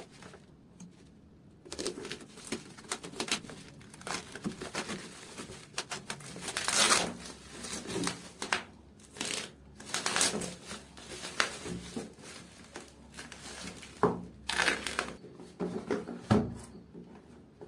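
Packaging of a power supply box being opened and handled by hand: irregular crinkling, rustling and tearing of plastic and cardboard, with a couple of sharper knocks near the end.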